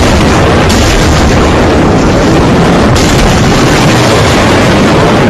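Loud, continuous rushing and buffeting noise of a typhoon's wind and rain, overloading the microphone.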